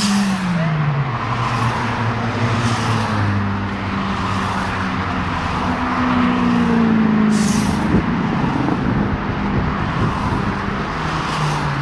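Track-day cars driving past at speed along a race circuit's straight, one after another; their engine notes drop in pitch as each goes by, with one passing just after the start and another around six to seven seconds in.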